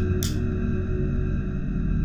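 Eerie background music: a steady low drone of sustained tones. A brief hiss sounds just after the start.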